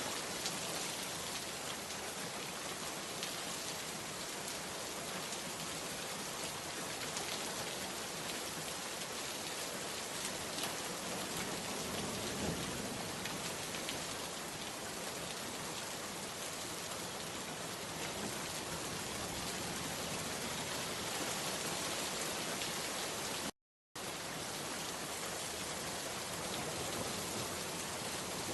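Steady rain falling, an even, dense patter. It cuts out to complete silence for a moment about five seconds before the end, then resumes.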